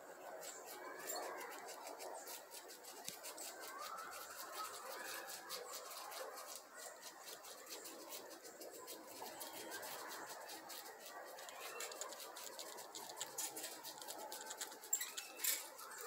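A squirrel gnawing a small palm nut (coquinho): a fast, dense run of faint clicks and scrapes from its teeth working the hard shell, with a few louder cracks near the end.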